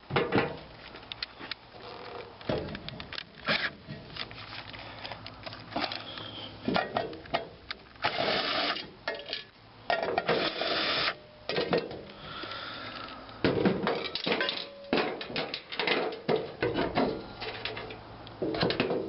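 Metal parts and hand tools clinking, knocking and scraping while an appliance is taken apart for scrap, with a series of sharp clicks and two rougher bursts of about a second each near the middle.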